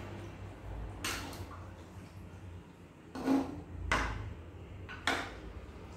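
Metal spatula scraping and knocking against a nonstick wok while chicken pieces in their cooking liquid are stirred, a handful of separate strokes, the loudest a little past halfway.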